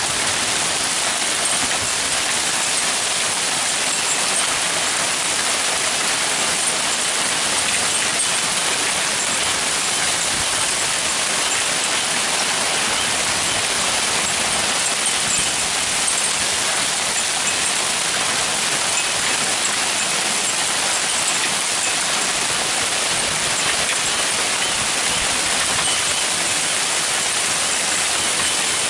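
Hail falling hard with rain: a dense, steady hiss of hailstones striking the road, paving and hedges, full of tiny ticks.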